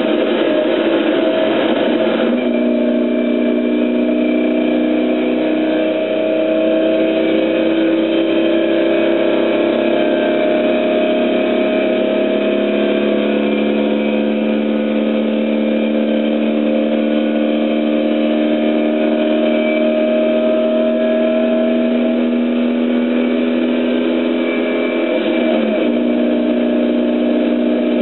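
A racing car's engine running hard under load, heard from inside the cabin, its pitch climbing slowly and shifting to a new note a few times as it changes gear.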